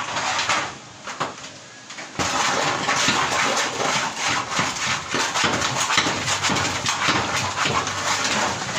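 Dense metallic clattering and rattling from the corrugated iron roof during roofing work, starting abruptly about two seconds in.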